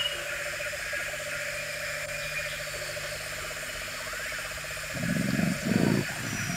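Jungle ambience: a steady, pulsing insect-like buzz with scattered short, high bird chirps. About five seconds in come two loud, low animal growls.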